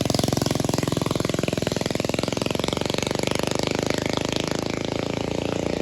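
Built MegaMoto MM80 minibike's small single-cylinder four-stroke engine running hard with a rapid, even firing beat.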